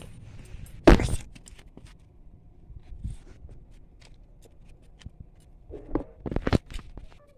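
A single loud knock about a second in, faint scattered ticks and scuffs, then a quick run of three or four knocks near the end, as of things being handled or set down.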